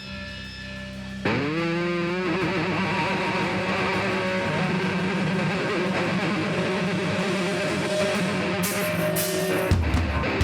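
Live distorted electric guitar opening a heavy hardcore song: a held chord rings, then about a second in a louder guitar comes in with a rising bend and keeps up a sustained distorted riff. Near the end the rest of the band joins with heavy low end.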